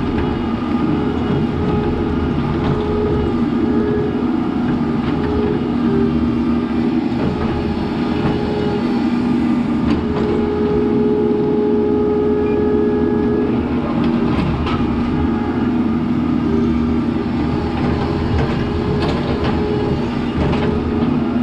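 Mini excavator running under load while its bucket digs a trench in root-filled dirt. The engine rumbles steadily under a hydraulic whine that swells and eases as the arm works, with a few short clunks and scrapes from the bucket.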